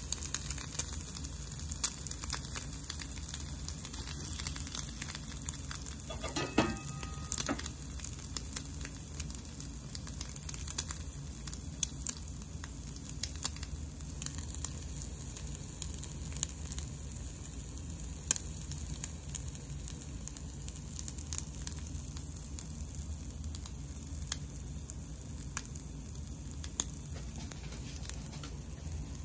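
French toast frying in butter in a pan: a steady sizzle with a scatter of small pops and crackles.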